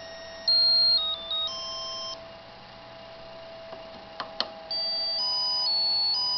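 Monophonic ringtone melody from an ATmega8 AVR microcontroller playing RTTTL tunes, as a string of electronic beep notes stepping in pitch. One tune's phrase ends about two seconds in, a few sharp clicks follow, and a new melody starts near the five-second mark.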